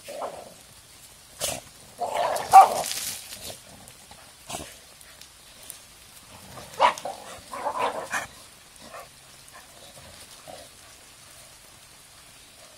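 American Staffordshire terriers barking in short bursts while they chase a ball. The loudest burst comes about two and a half seconds in and another about seven to eight seconds in, with a couple of sharp clicks between them.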